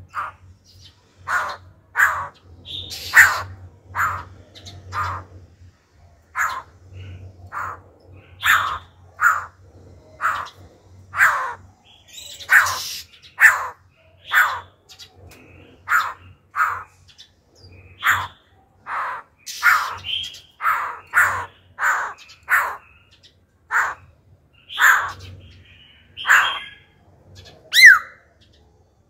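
Caged black-throated laughingthrush singing: a long run of short, loud, repeated call notes about one a second, changing from phrase to phrase, with a bending whistled note near the end.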